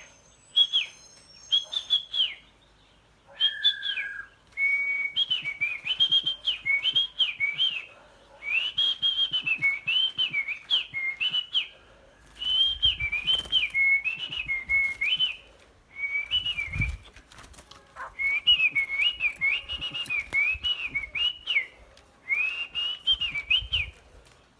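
A songbird singing: repeated phrases of quick, clear whistled notes that rise and fall, each phrase lasting a few seconds with short pauses between.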